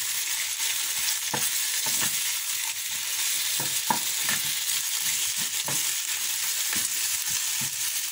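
Sliced onions and bell peppers sizzling in a hot non-stick frying pan while being stirred with a spatula: a steady sizzling hiss with scattered soft knocks and scrapes of the spatula against the pan.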